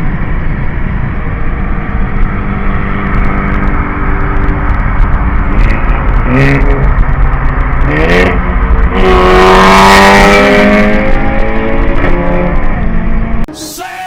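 Tuned 1.4 TSI four-cylinder with a hybrid turbo at 1.6 bar boost, accelerating hard: the engine note climbs in several pulls with short breaks between them at the gear changes. The sound drops off abruptly near the end.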